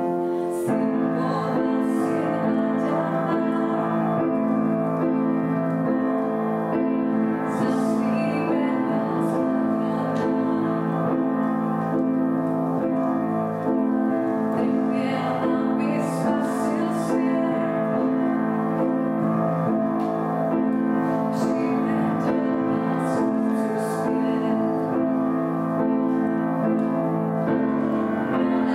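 Slow instrumental keyboard music with long held chords.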